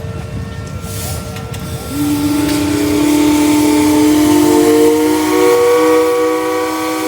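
Several steam traction engine whistles blowing together in a sustained chord. One whistle is already sounding when a louder, lower whistle opens about two seconds in, and more whistles at other pitches join over the next few seconds.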